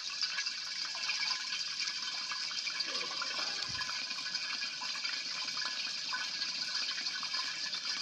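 Homemade overhead stirrer running: a hand blender's permanent-magnet DC motor, fed a low DC voltage, spins a stirrer shaft in a flask of liquid. It makes a steady, churning hiss with no clear pitch.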